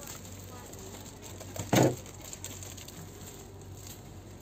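Steady low hum of a supermarket aisle, broken about two seconds in by a single loud thump.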